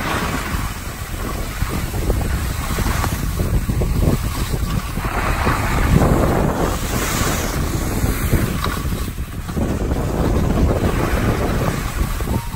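Wind buffeting the microphone of a camera carried downhill by a skier: a loud, steady rush that swells and eases, loudest about halfway through.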